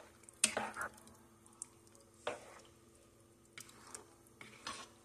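A spoon stirring chunky soup in a large metal pot: a handful of short, wet sloshing and scraping strokes spread over several seconds, over a faint steady hum.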